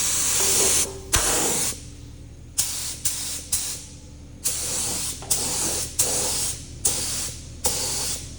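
Paint spray gun hissing in about ten short bursts as the trigger is pulled and released, each blast starting and stopping sharply, while paint is sprayed onto a tractor fuel tank.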